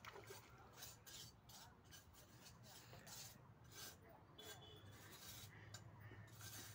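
Faint, irregular rasping and clicking of a fishing reel as a hooked fish is played in toward a landing net.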